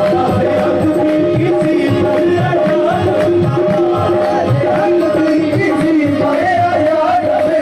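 Live qawwali music: fast, steady hand-drum rhythm under held melodic notes, with a wavering sung line over the top.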